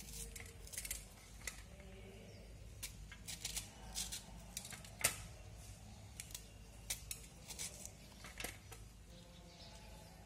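Scattered light clicks and taps of kitchen handling, irregular and without a rhythm, the sharpest one about halfway through, over a faint low hum.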